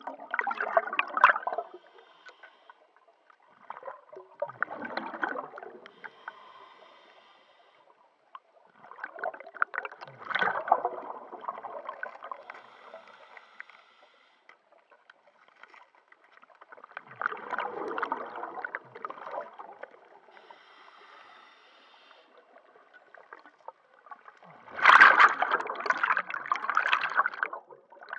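Scuba diver breathing through a regulator underwater: a gurgling rush of exhaled bubbles five times, several seconds apart, the last the loudest, with a fainter hiss of each inhale in between.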